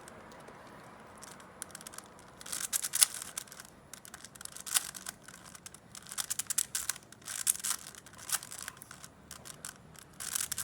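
Plastic Rubik's-type puzzle cube being turned by hand: irregular bursts of quick clicking and clacking as its layers snap round.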